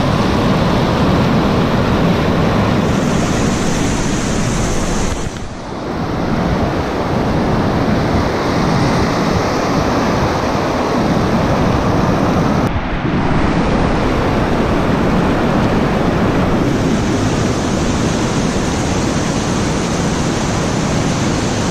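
Whitewater rapids rushing and churning loudly, heard close at water level, with two brief muffled dips about five and thirteen seconds in.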